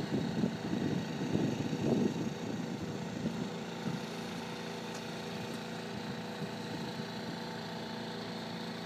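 Small engine of a motorised portable water pump running steadily, an even hum. Irregular louder noise sits over it in the first two seconds.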